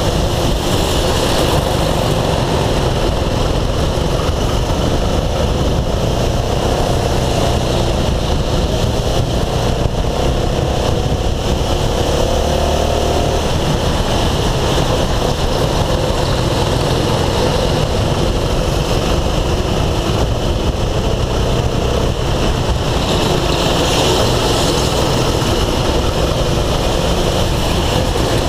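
Go-kart engine running at racing speed through the corners, heard from a helmet camera as a steady loud rumble, its pitch rising and falling a little with the throttle.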